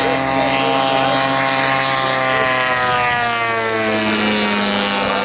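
The 150cc gas engine and propeller of a giant-scale RC Pitts Model 12 biplane running at high power as the plane climbs, its pitch falling steadily about halfway through, then holding lower.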